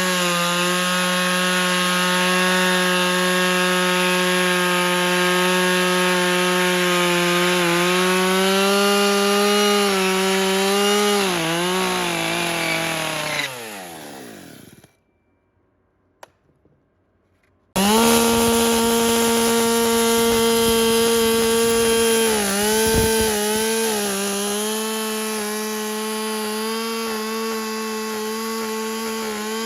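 Electric planer motor running at a steady high whine, its pitch dipping briefly as it bites into the timber. Partway through it is switched off and coasts down with a falling pitch, then about three seconds later it is switched back on and is at full speed almost at once.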